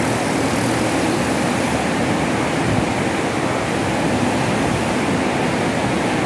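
Water rushing through a tidal sluice gate: a steady, even roar of flowing water.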